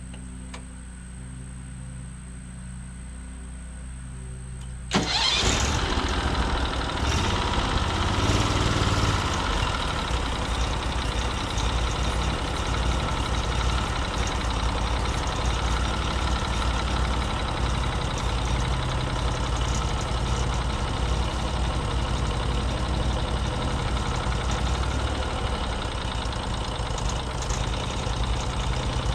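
Norwood MX34 bandsaw mill's gas engine idling low, then about five seconds in suddenly brought up to full speed and running steadily and loud as the band blade saws along the log.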